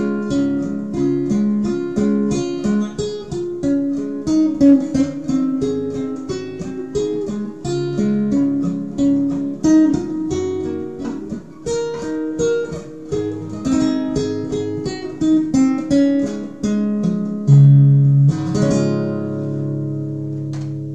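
Classical guitar played fingerstyle: a picked melody over a bass line. Near the end a final chord is strummed and left to ring out, fading away.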